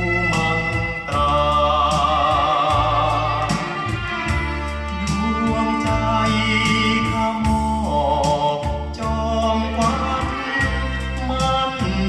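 Thai song playing back from a vinyl record: band music with wavering, vibrato-laden melody lines over a steady pulsing bass.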